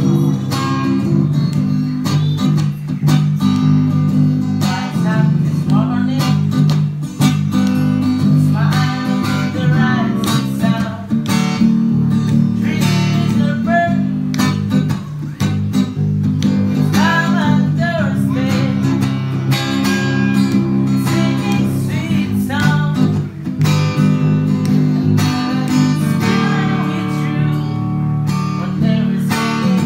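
Lakewood acoustic guitar and Ibanez SDGR electric bass played together, the guitar strummed and picked over a steady bass line, with a man's voice singing along.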